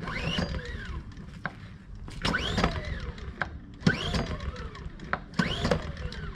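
Ryobi inverter generator being pull-started with the recoil cord four times, each pull a rising and then falling whir as the engine spins over without firing. It is choked but won't start, which the owner suspects is because the choke doesn't close all the way.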